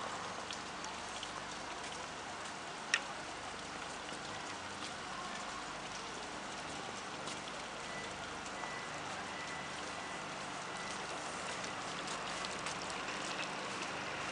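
Steady hiss with many faint scattered ticks, like light rain, and one sharp click about three seconds in.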